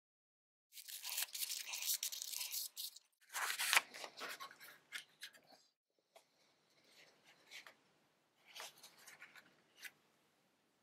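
Paper rubbed by hand across an inked acrylic (Perspex) drypoint plate to wipe off surplus ink: two long bouts of scratchy rustling. After that come fainter, shorter rustles and ticks of paper being handled on the press bed.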